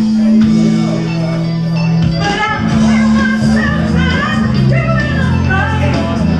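A woman singing karaoke into a microphone over a recorded backing track of long held notes. Her sung melody comes in more strongly about two seconds in.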